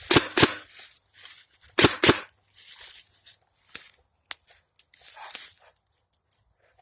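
Footsteps crunching and rustling through dry leaves and brush. There are two pairs of heavy steps in the first two seconds, then lighter scattered rustling that thins out toward the end.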